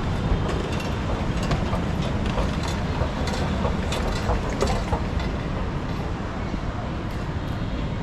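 Steady low rumble of a busy rail station, with scattered clicks and clatter in the first half.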